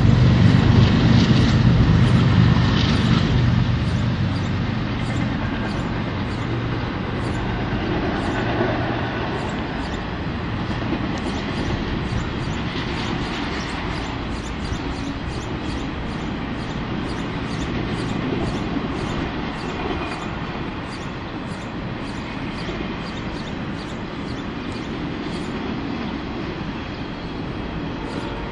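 A BNSF diesel freight locomotive passing, loudest in the first few seconds. It is followed by the steady rolling noise of an intermodal train's flatcars carrying truck trailers, wheels running over the rails.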